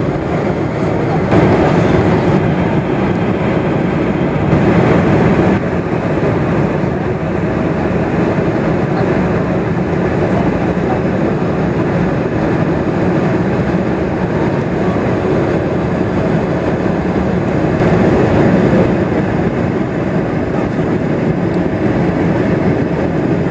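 Steady cabin noise of a Boeing airliner on final approach, the engines and rushing air heard from inside the cabin, swelling louder briefly a few times.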